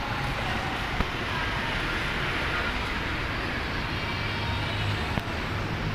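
Steady road-traffic and vehicle noise, with a low engine hum growing stronger about four seconds in, and a light knock about a second in and another near the end.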